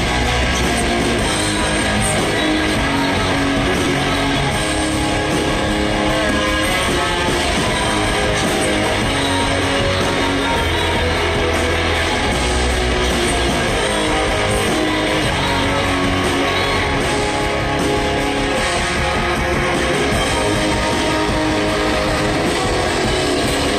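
Live rock band playing loudly: electric guitar over bass and drums, one dense wall of sound with no break.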